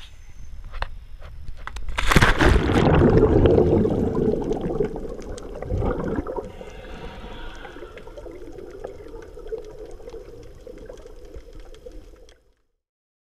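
A scuba diver splashes into the sea from the side of a boat, followed by a few seconds of loud rushing water. Water then bubbles and swirls more quietly around the submerged camera and cuts off suddenly near the end.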